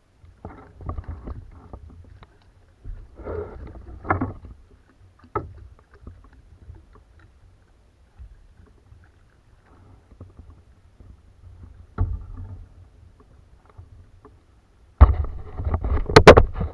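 Irregular knocks, bumps and rustles on a plastic sit-on-top kayak as it is handled, with a single sharp knock about twelve seconds in and a much louder burst of knocks near the end.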